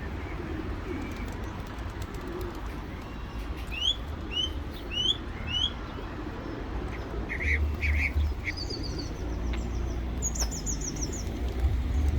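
Pigeons cooing faintly among other birds, over a steady low rumble. A small bird gives four quick rising chirps about four seconds in, with more chirps and a rapid high trill later on.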